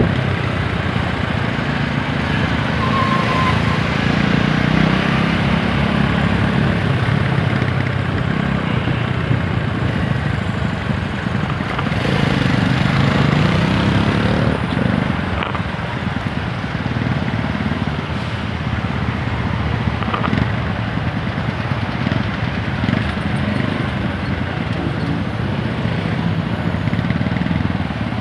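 TVS Apache 160 4V's single-cylinder engine running under way, its note rising and falling with the throttle, over steady road and wind noise.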